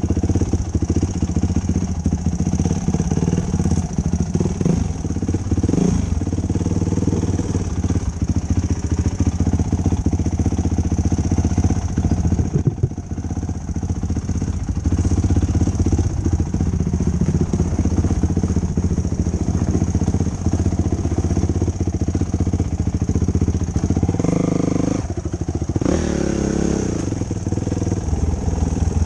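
2005 Yamaha YFZ450 quad's single-cylinder four-stroke engine running while being ridden, the throttle opening and closing, with a brief letup about thirteen seconds in.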